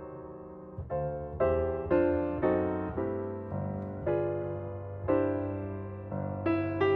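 Background piano music: a slow melody of single notes and chords, each ringing out and fading before the next.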